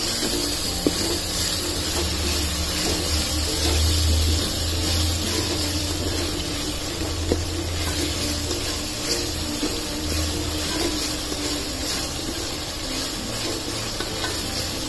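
Tomato-and-spice masala sizzling steadily in hot oil in an aluminium pot as it is stirred with a plastic spoon, with a few light taps of the spoon. A low hum comes and goes underneath.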